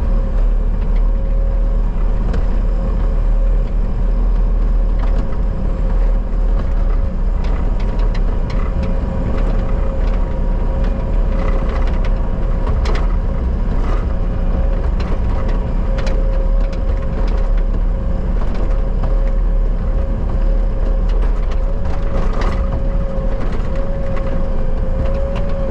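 Bobcat skid steer engine running steadily while working, with a steady whine through it and occasional knocks and clatter, loudest in the middle and near the end.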